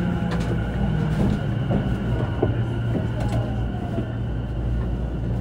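Running noise inside an E233 series EMU motor car fitted with MT75 traction motors and a Mitsubishi IGBT-VVVF inverter: a steady low rumble of wheels on rail and motor hum. About three seconds in, a faint motor whine falls in pitch, and a few light clicks come from the wheels and running gear.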